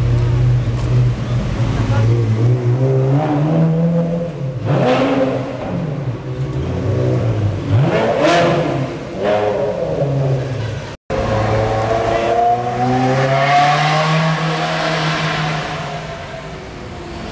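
Ferrari sports car engines, a 360 Spider's V8 among them, revving as the cars drive slowly through a concrete tunnel, the note rising and falling with several sharp blips, the sharpest about halfway.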